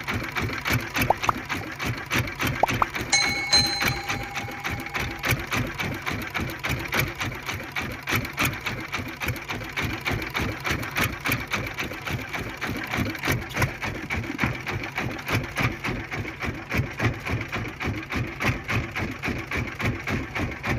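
A fishing boat's engine running steadily with a fast, even beat, with a brief steady tone about three seconds in.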